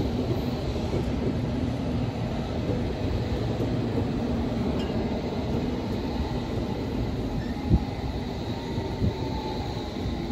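London Underground S Stock train running slowly along the platform: a steady rumble of wheels and running gear with a faint high whine. There is one brief knock about three-quarters of the way through.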